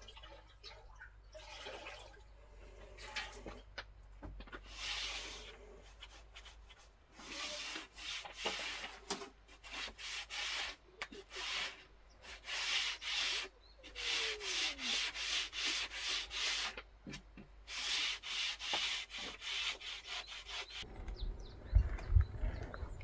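A brush sweeping a hard floor in repeated scraping strokes. The strokes are sparse at first and come about once a second from about seven seconds in, then stop near the end.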